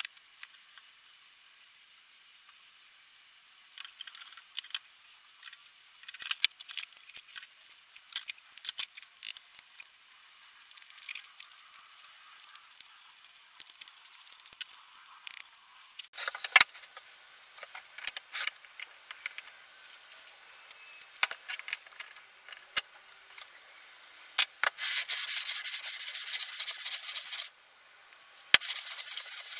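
Scattered scratching and clicking as the rusty parts of an old Stanley Bailey No.5 hand plane are handled and scrubbed. Near the end comes a steady rasping as the plane's cast-iron sole is rubbed on sandpaper, in two stretches with a short break between.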